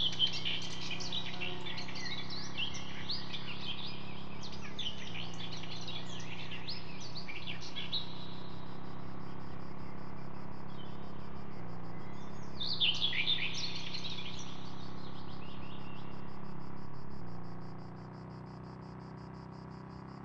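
Birds chirping over a steady insect trill and a low hum, in an outdoor nature ambience; the chirping is busiest in the first several seconds, with another burst about thirteen seconds in. The whole ambience fades down near the end.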